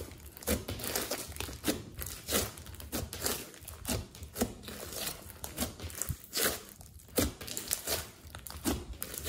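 Thick fluffy slime dotted with small foam beads being pressed and stretched by hand, giving irregular crackling pops and clicks, several each second.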